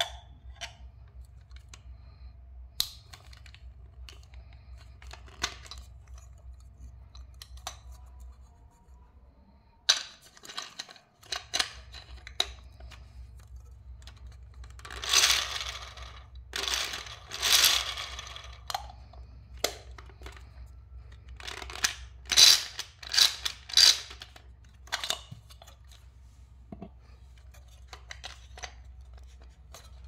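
Hard plastic toy appliances being handled: scattered clicks and knocks as the clear jar of a toy blender is set on and taken off its base. Bursts of louder plastic clatter come about halfway through and again about two-thirds in.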